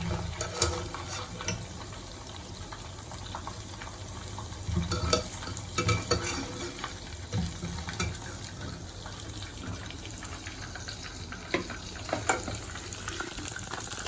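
Hot oil sizzling steadily as chicken pieces deep-fry in a pan, with irregular clinks and knocks of a utensil against the pan as browned pieces are lifted out.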